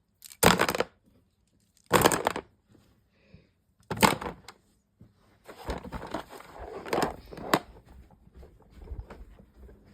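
Small plastic fidget toys being tipped into a container, clattering in three short bursts and then rattling and rustling as they are handled, with a sharp click near the end.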